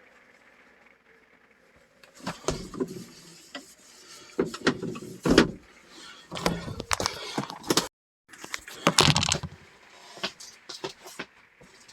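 Irregular knocks, clatters and rustling noise begin about two seconds in and continue to the end. The sound drops out completely for a moment just before eight seconds in.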